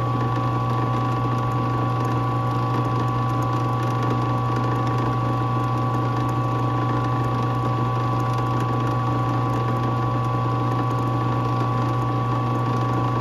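Drill press motor running steadily, spinning a clock balance wheel whose pivot is being polished against a toothpick.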